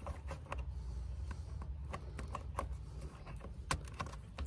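Scattered small clicks and rattles of a plastic plug and coiled cable being handled and pushed into the socket of an anchor windlass, over a steady low rumble.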